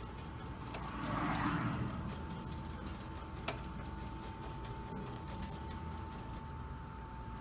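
Arcade background noise: a steady electronic tone and hum from the machines, with a brief swell of noise about a second in and scattered sharp clicks.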